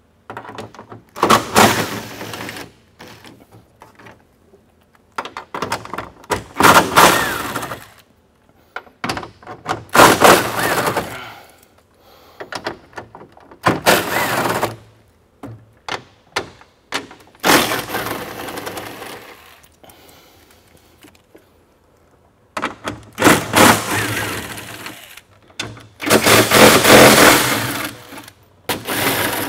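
Cordless impact driver with a socket extension hammering 10 mm grille bolts loose from the underside of a pickup's hood, in repeated bursts of a second or two with short pauses between bolts.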